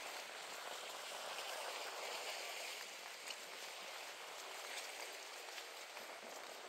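Shallow lagoon water lapping and trickling around the dock's pilings, a steady watery hiss with a few faint ticks.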